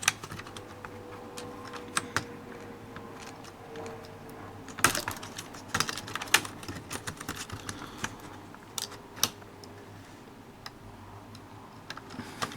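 Irregular small clicks and taps of a stubborn part being worked and pried loose inside an HP dv7 laptop, with a cluster of louder clicks about five seconds in.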